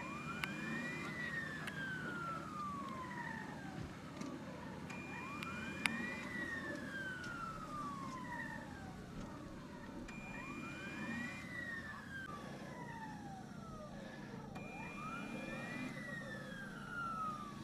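A wailing siren: its pitch rises quickly, then falls slowly over a few seconds, repeating about every five seconds. A short steady high tone sounds at the start of each rise.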